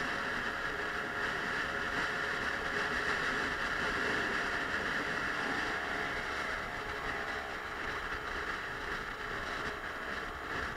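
Suzuki Let's 4 50cc four-stroke scooter riding in traffic: a steady rush of wind and road noise over the engine's drone. The engine's pitch dips slightly a few times, and the sound eases off a little near the end.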